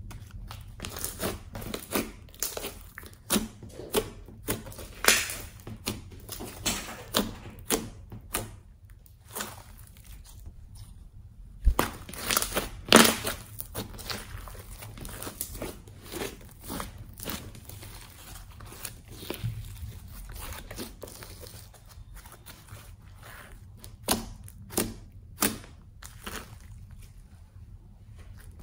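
Pink fluffy slime with small foam beads being stretched, folded and squeezed by hand, giving irregular sticky crackles and pops, with a louder run of pops about halfway through.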